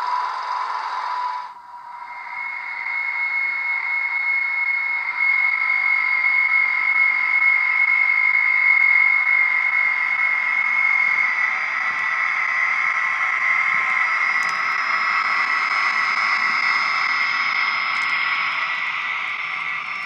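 Hornby HM7000 sound decoder in a model Class 73 electro-diesel playing its electric-mode locomotive sound: a steady high whine from the decoder's small speaker. About a second and a half in the sound drops out briefly, then a new high whine starts and grows louder as the model runs by.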